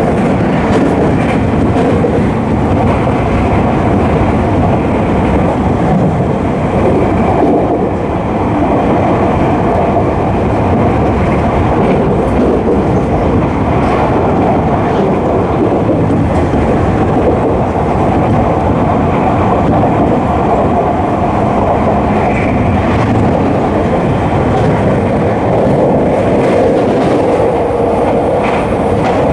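Tokyu 3000 series electric train running between stations, heard from inside the car: a loud, steady rumble of wheels on rail and running gear.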